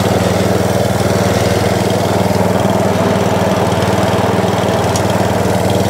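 Atco Balmoral 17SE cylinder mower's petrol engine running steadily, with its belt drive engaged and turning the mower.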